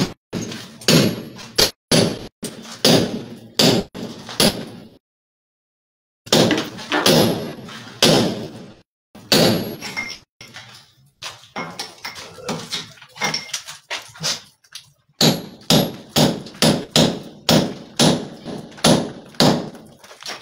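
Club hammer driving a chisel into a plastered masonry wall, breaking it open, blow after blow at about two a second. The blows stop for about a second around five seconds in, and are lighter and uneven in the middle.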